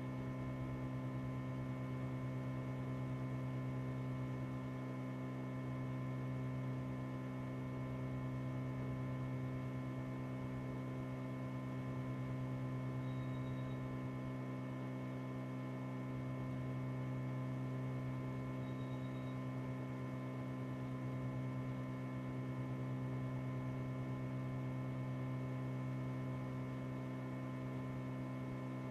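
Steady electrical mains hum, a low drone with a stack of higher overtones, unchanging throughout.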